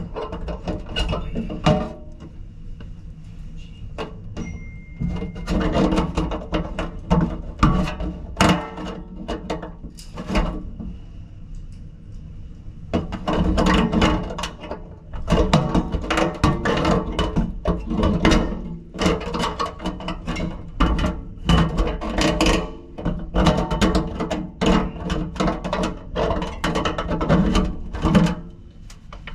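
Rapid clicking, clanking and rattling of tools and metal fittings as the old kitchen faucet is worked loose and pulled up out of the sink. The rattling comes in long bursts, with short lulls a few seconds in and again near the middle.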